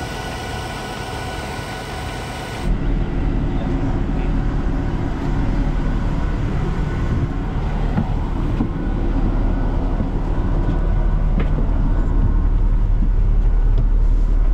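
MCI J4500 motor coach's diesel engine idling with a steady rumble, heavier and closer after an abrupt change about three seconds in.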